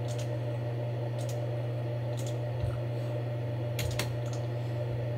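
A handful of scattered clicks from a computer mouse and keyboard, over a steady low hum.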